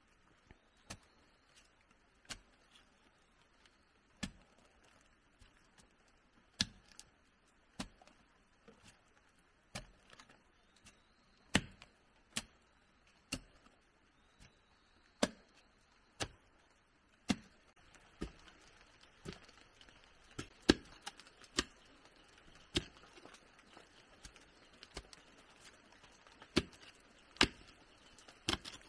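A run of sharp, irregular knocks and taps, about one to two a second, from hand-tool work on wood, over a faint steady hiss that grows a little louder about two-thirds of the way through.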